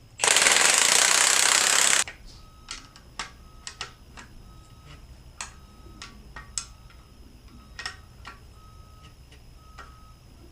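A loud burst of noise lasting about two seconds, then a string of light metallic clicks and taps as the shock's threaded height adjustment is worked.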